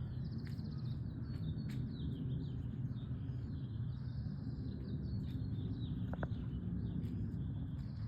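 Several birds chirping and trilling, one call overlapping the next, over a steady low rumble of background noise.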